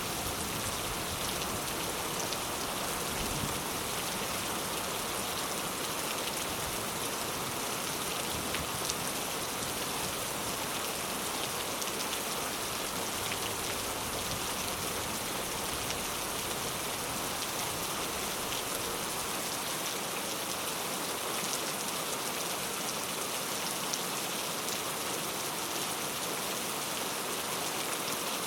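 Steady rain falling on a surface, an even unbroken hiss with scattered individual drops ticking through it.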